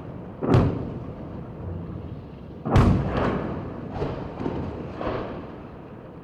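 A series of distant explosions from a rocket barrage over a city: several heavy booms, the loudest about three seconds in, each rolling off in an echoing rumble.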